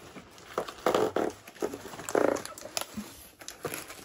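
Cardboard boxes scraping and creaking as packed boxes are pushed against each other and into a large cardboard carton, with two longer rough creaks about a second and two seconds in and scattered taps and rustles.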